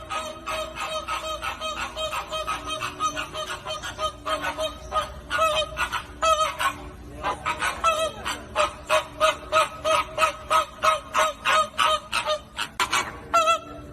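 A flock of flamingos honking, many short calls overlapping in a continuous, rapid chatter of several calls a second.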